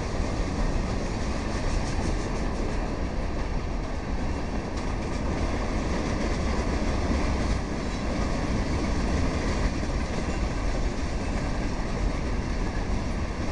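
Freight cars of a long mixed freight train rolling past: a steady noise of steel wheels running on rail.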